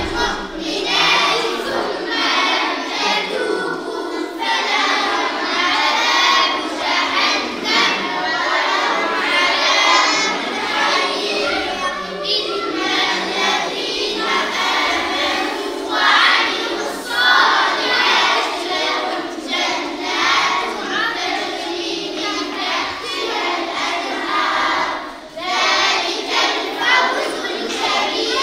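A group of children chanting together in unison, with a brief pause near the end.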